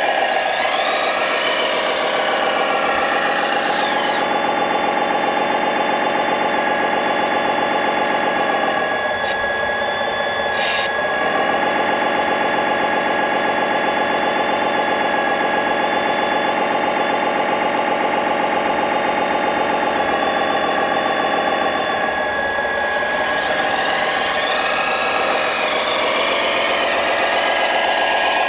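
The hydraulic pumps and motors of 1/14-scale RC construction machines, chiefly a wheeled RC excavator, run with a steady whining hum made of several tones. Rougher, hissing noise joins in for the first few seconds and again about 23 seconds in.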